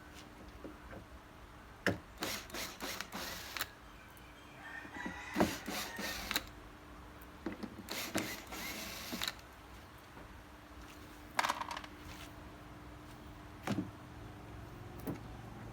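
Hand work on a portable speaker during repair: scattered sharp clicks and several short bursts of tool and handling noise, over a faint steady hum.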